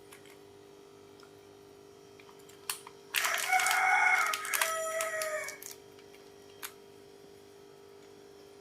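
A rooster crows once, starting about three seconds in and lasting some two and a half seconds, ending on a falling note. Under it is a faint steady hum, with a couple of light clicks.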